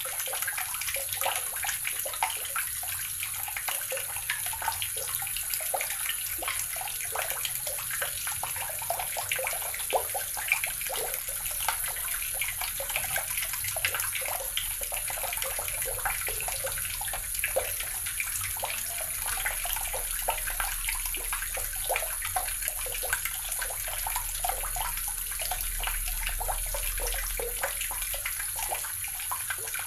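Tap water running steadily and splashing into a basin, a continuous even rush with dense small spatters.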